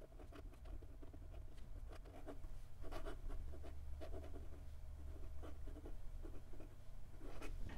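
Fine steel fountain pen nib scratching across Clairefontaine 90 gsm paper in handwriting: a quick, irregular run of short, faint strokes, the sound of a smooth nib with slight feedback. A faint steady low hum sits beneath.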